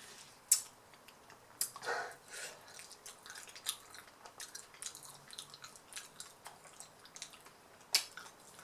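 Close-miked mouth sounds of eating fish curry with rice: wet chewing, lip smacks and sharp clicks, irregular throughout.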